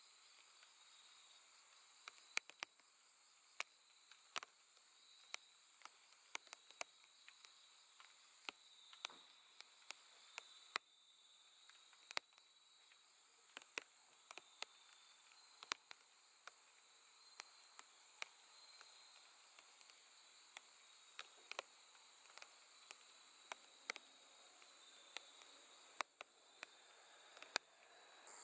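Faint night chorus of grass insects, crickets trilling steadily in thin high-pitched bands. Irregular sharp clicks are scattered throughout.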